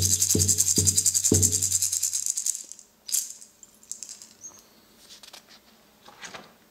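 Large hide frame drum struck with a beater, with a hand rattle shaking fast beside it. The drum beats slow down and, with the rattle, stop about two and a half seconds in, closing the piece; after that only a few faint clicks and rustles.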